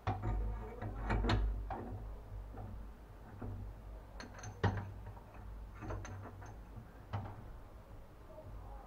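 Socket wrench and socket working on the nut of a shower faucet valve stem: a few irregularly spaced sharp metal clicks and clunks over a low handling rumble.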